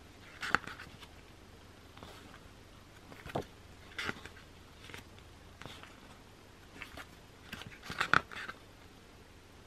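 Pages of a softcover album photobook being turned and handled by hand: a scattering of short paper flicks and rustles, the loudest cluster near the end.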